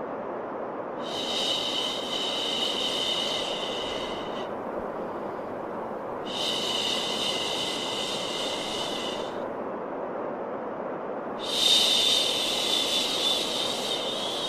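Long, drawn-out 'shhh' shushing sounds, three of them about five seconds apart and each lasting about three seconds, over a steady white-noise hiss meant to calm a crying, colicky baby. The last shush is the loudest.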